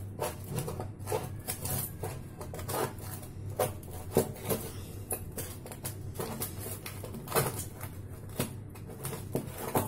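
A table knife scraping and clicking against the sides of a metal loaf tray as it is run around the edges to loosen the baked bread, in irregular short strokes over a steady low hum.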